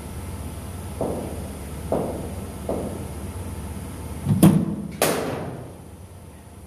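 Cricket ball and bat knocks in an indoor net hall. Three lighter knocks come about a second apart, then two loud hard hits about half a second apart, the second a sharp crack that rings on in the hall.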